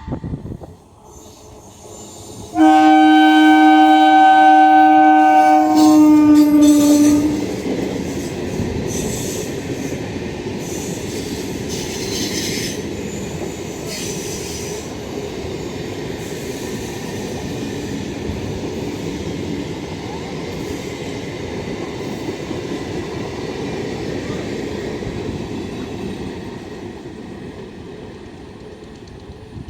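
Indian Railways locomotive horn sounding one long multi-tone blast about three seconds in, its pitch dropping as the train passes. The train then rumbles and clatters past, fading near the end.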